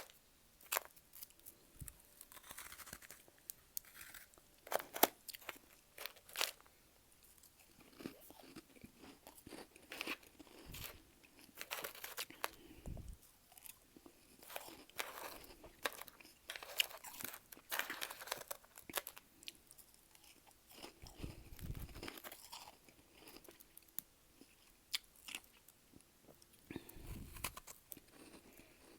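A person crunching and chewing powdery freezer frost close to the microphone: irregular crisp crunches and crackles between pauses, with a few dull low thuds near the end.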